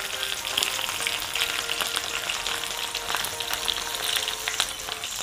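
Hot oil sizzling and crackling in a frying pan of spiced chicken legs, a steady hiss dotted with many small pops.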